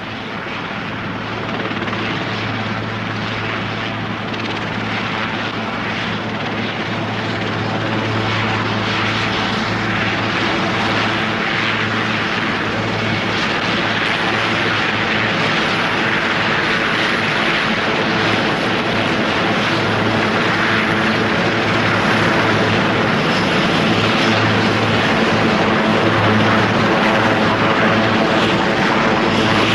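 Helicopter in flight: a steady drone of engine and rotor with a low hum beneath, growing gradually louder as it comes in to land on a platform's helideck.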